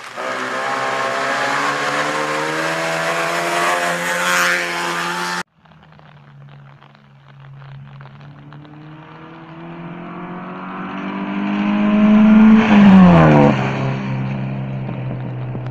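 Rally car engine accelerating hard towards the listener, its note climbing steadily, until it cuts off suddenly about five seconds in. A second rally car's engine then grows louder as it approaches, passes close about 13 seconds in with a sharp drop in pitch, and runs on going away.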